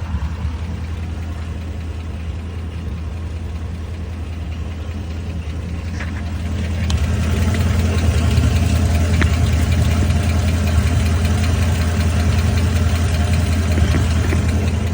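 Chrysler 300 SRT8's 6.4-litre Hemi V8 idling, with a fast ticking over the idle: the 'Hemi tick' that the owner suspects is lifters or an exhaust leak. The engine gets louder about seven seconds in.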